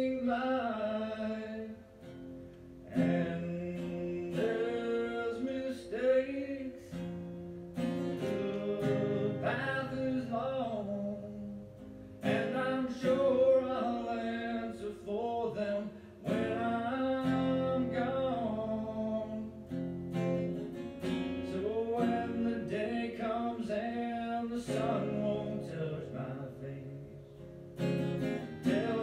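A man sings over a strummed acoustic guitar, in sung phrases of a few seconds with short breaks between them.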